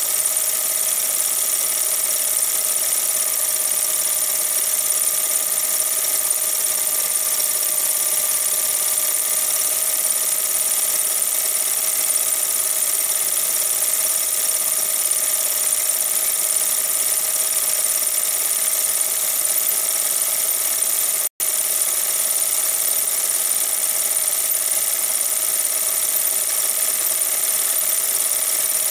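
Film projector running: a steady mechanical whir with a high hiss, unbroken apart from a split-second dropout about 21 seconds in.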